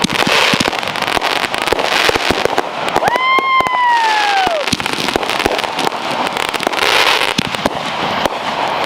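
Backyard finale of several consumer firework cakes going off together: dense bangs and crackling throughout. About three seconds in, a whistling firework rises in pitch, then falls and dies away about a second and a half later.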